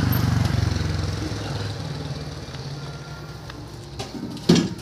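Single-cylinder diesel engine driving a branch chipper, its running sound dying down over the first two or three seconds as it slows. Near the end comes a loud metallic clank as the chipper's sheet-metal discharge hood is handled.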